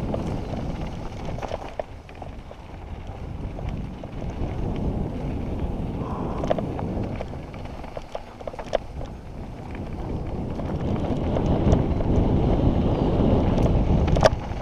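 Wind buffeting the microphone of a helmet-mounted camera on a mountain bike descending a dirt and gravel trail, with the tyres rolling over stones and the bike rattling in sharp clicks. The rush of wind grows louder in the last few seconds, and a sharp knock comes just before the end.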